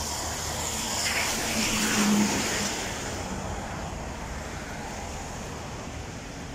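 A car passing close by, its engine and tyre noise swelling to a peak about two seconds in and then fading into steady background road traffic.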